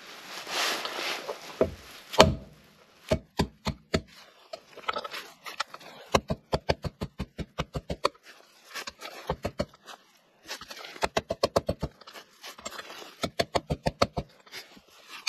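A hammer tapping a metal bearing driver to drive a new front wheel bearing into the hub of a Triumph Daytona 955i wheel: quick runs of light taps, about five a second, with short pauses between runs. The bearing is being driven gently so that it goes in straight.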